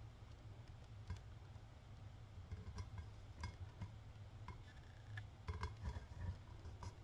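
Faint scattered clicks and light rubbing of fingertips and fingernails pressing and smoothing a small adhesive cutout onto a painted tumbler, over a low steady hum.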